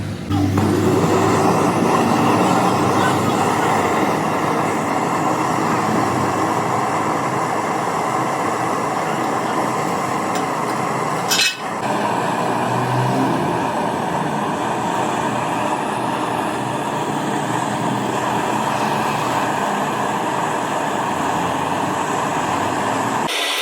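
Steady mechanical running noise with a single sharp click about halfway through.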